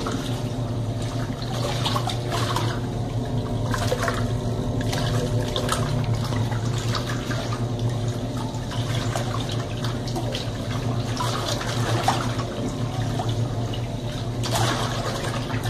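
Colormaq Pioneer tanquinho (small top-loading washer) agitating a load of cloths in soapy water: a steady motor hum under continuous sloshing and splashing, the wash stage just begun after the soak.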